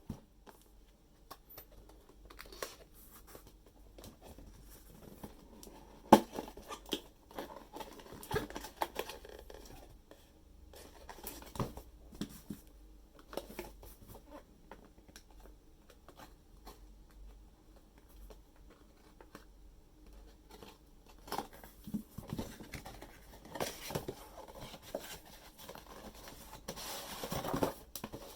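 Handling of a boxed toy figure's cardboard and plastic packaging: irregular taps, scrapes and crinkles, with a longer rustling crinkle near the end.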